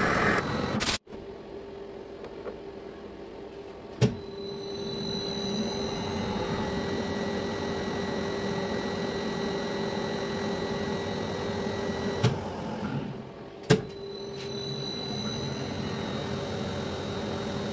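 Metal lathe running with its three-jaw chuck spinning: a steady motor and gear hum with a high whine, broken by a brief drop about a second in and a few sharp clicks.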